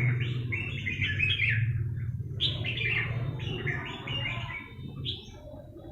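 Small birds chirping in quick, repeated bursts, over a steady low hum.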